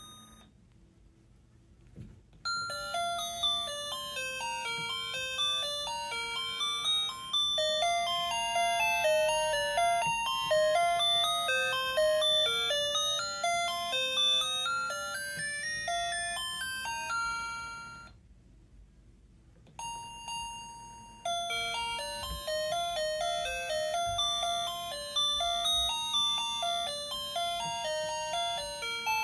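Gemmy animated knitting teddy bear's sound chip playing a chime-like electronic Christmas melody. It stops briefly near the start and again about two-thirds of the way through, then starts again. A faint steady hum from the figure's motor and gear drive runs underneath.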